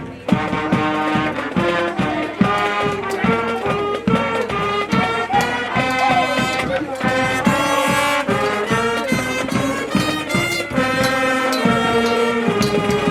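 Brass-led band music: a high school marching band plays a rhythmic tune with trombones and trumpets.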